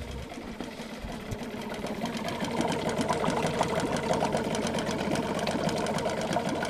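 Mariner 4 hp two-stroke outboard motor idling, a fast even putter that grows louder over the first couple of seconds. Its cooling water is splashing into the wheelie bin of water it is clamped in, a sign that the water pump is now working.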